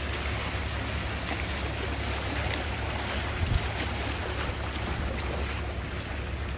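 Sea waves washing steadily, with a low rumble underneath and a brief bump about three and a half seconds in.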